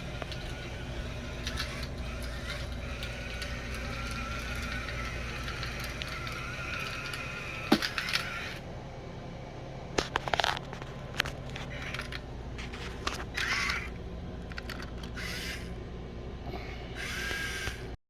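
Small electric gear motors of an Arduino robot car whining steadily, stopping about eight and a half seconds in. Scattered clicks and knocks follow.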